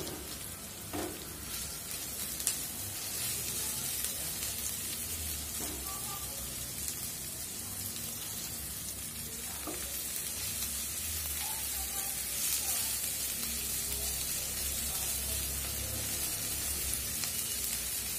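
Sliced onions and chopped green chillies sizzling steadily in hot oil in a nonstick pan, stirred with a silicone spatula, with a few light knocks of the spatula against the pan.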